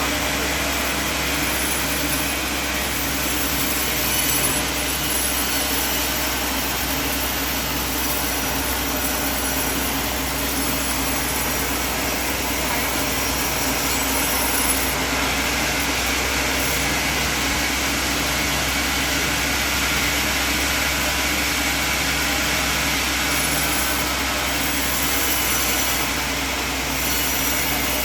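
Band sawmill running steadily: a constant, even machine noise with a low hum underneath.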